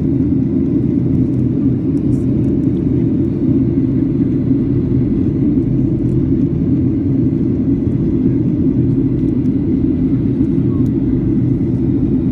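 Boeing 737 cabin noise heard from a window seat over the wing during the descent: the steady, deep drone of the turbofan engines and rushing air, with a low hum running through it.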